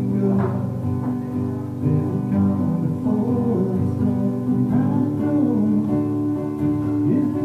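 Sunburst acoustic guitar strummed in a steady, laid-back chord accompaniment, played live into a microphone.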